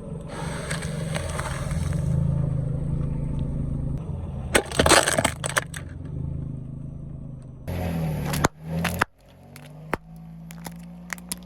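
A car's engine running as it rolls its tyre onto an object, with a burst of sharp cracking and crunching about five seconds in as the object is crushed, the loudest sound here. Later the engine hum is quieter, with scattered short clicks.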